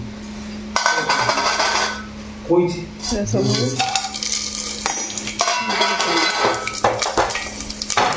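Steel bowl clinking and scraping against an aluminium pressure cooker as whole spices (bay leaves, cinnamon, cloves) are tipped into hot oil, with irregular clatters of metal on metal.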